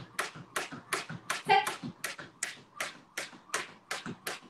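Jump rope skipping on a wooden floor: a sharp tap with each turn of the rope, about three a second in a steady rhythm. A short voice sound breaks in about a second and a half in.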